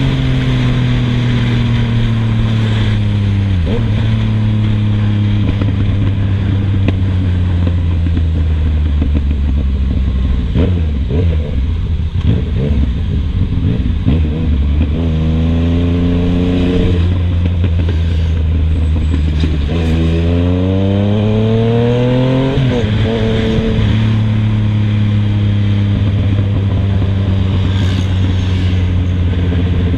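Yamaha MT-09's three-cylinder engine running through a full 3-in-1 Scorpion GP720 stainless-steel exhaust with a carbon-fibre tip, loud and holding a steady note for long stretches. The revs climb twice in the middle, the second time longer and higher, and drop back sharply each time.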